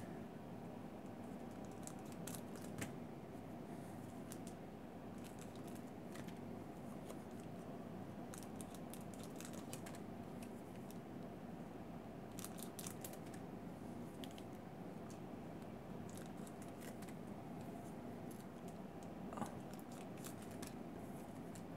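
Scissors snipping open foil trading-card packs, with scattered faint snips and crinkles of the wrappers over a low room hum.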